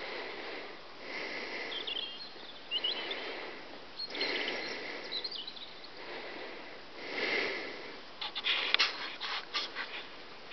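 Rural field ambience: soft swishing noises recurring every second or two, with a few faint bird chirps. A quick flurry of clicks and rustles near the end.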